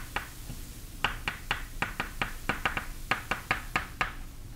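Chalk tapping on a blackboard while a line of symbols is written: a quick, irregular run of short clicks, about four or five a second.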